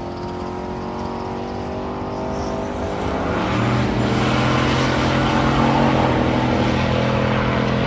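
Car engine running under load, getting louder, its pitch sliding down and then dropping sharply about three seconds in before holding steady.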